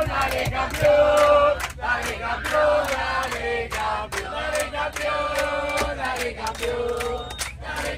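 A crowd of fans singing a football chant together in long held notes over a steady rhythmic beat, the kind of chant sung to celebrate Argentina's Copa América title.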